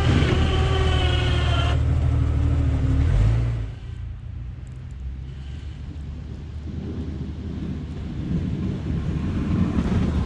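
Jeep Wrangler TJ's engine revving under load, its pitch climbing slightly for the first couple of seconds. About three and a half seconds in it drops back to a lower, steady run, which builds slightly again near the end.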